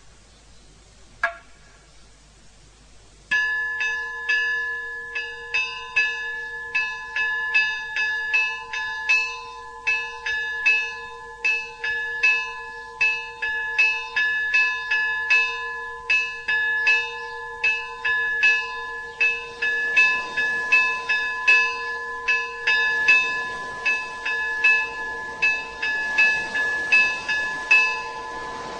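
Church bells ringing: a single strike about a second in, then a peal of several bells from about three seconds in. They are struck about twice a second in an uneven rhythm, and each strike rings on under the next.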